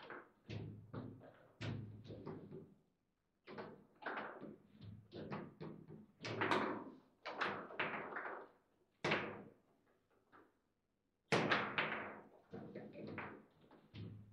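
Table football being played: a rapid series of sharp knocks and clacks as the ball is struck by the plastic figures and the rods hit the table, with two brief pauses in the play.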